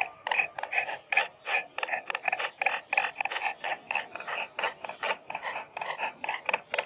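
Pig grunting in quick short bursts, about five a second.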